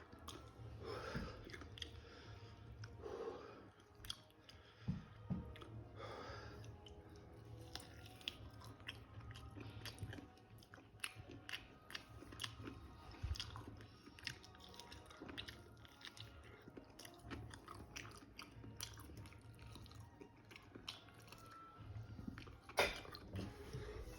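Close-up chewing and biting into chicken wings, with soft crunches and wet mouth clicks scattered throughout.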